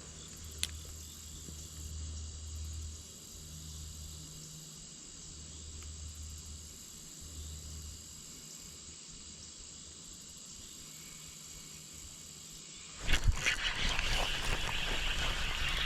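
Faint steady high-pitched insect chirring, with low rumble and a single click early on. About 13 seconds in, a much louder rough noise sets in and carries on.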